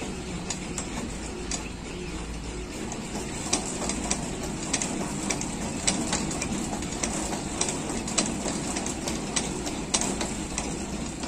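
Outdoor park elliptical walker machine clicking and knocking at its pivots as it is stepped, roughly one to two sharp clicks a second, over a steady low background rumble.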